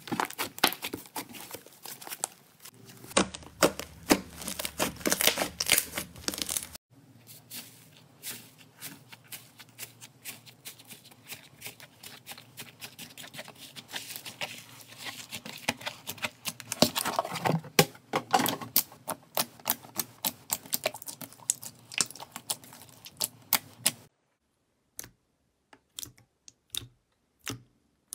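Slime being squeezed and poked by hand, giving rapid crisp clicks and crackles. The sound changes suddenly about seven seconds in, and near the end it thins to a few separate clicks.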